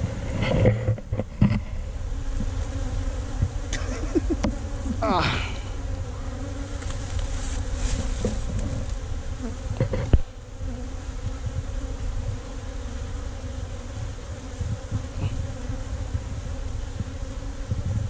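Honey bees buzzing in a steady drone around a wild hive inside a hollow tree trunk, while the hive is worked by hand, with a few sharp knocks near the start and about ten seconds in.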